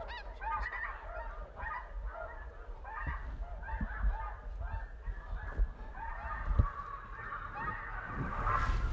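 A large flock of snow geese calling at the roost: a dense, continuous chatter of many overlapping high-pitched honks, likened to a bunch of monkeys. There is a low rumble underneath and a single low thump about six and a half seconds in.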